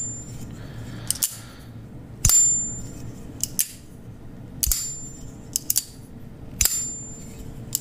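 Magnetic-detent folding knife being flipped open and shut over and over. Three times the blade snaps into place with a high metallic ting that rings for about half a second, and sharper clicks fall in between.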